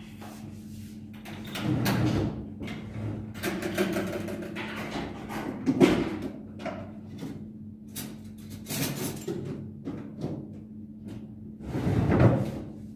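Music with percussion, swelling louder several times, over a steady low hum.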